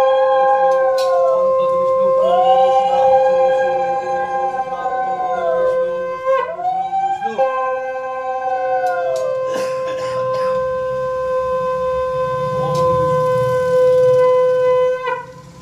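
Conch shells (shankh) blown in long notes during a Hindu puja. One holds a steady tone nearly throughout, breaking briefly about six seconds in. A second, higher one swells and falls in notes a few seconds long.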